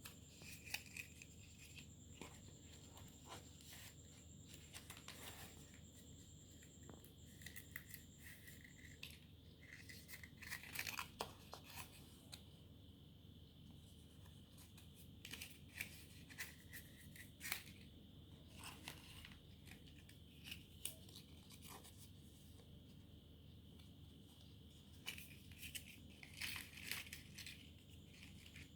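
Faint rustling and crinkling of paper and card with scattered light clicks and taps, as a handmade paper explosion box is handled.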